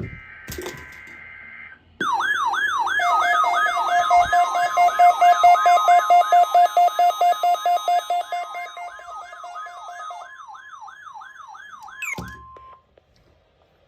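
Weather-radio alert alarm sounding for a warning-alarm test: a short steady high tone, then a loud warbling siren that sweeps up and down about twice a second over steady tones. It stops about twelve seconds in with a falling chirp.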